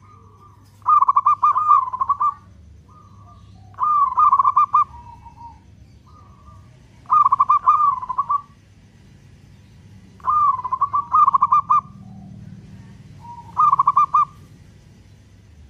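Zebra dove (local Indonesian perkutut) cooing: about five phrases of quick repeated notes, each lasting about a second, a few seconds apart, with softer single notes between them.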